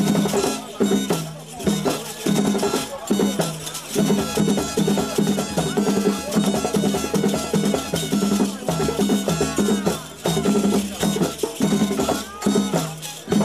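Zaouli mask dance music: drums and struck percussion in a quick, unbroken rhythm over a repeating low stepping melody.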